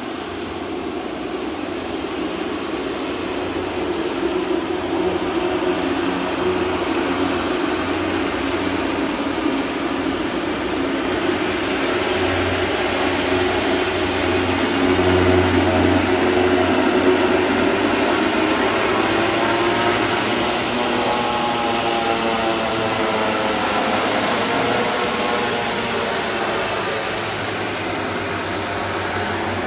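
Twin turboprop engines of a small high-wing commuter plane running as it taxis onto the runway: a steady, loud drone with a low hum. It swells to its loudest about halfway through, then its tone shifts and sweeps as the plane swings round.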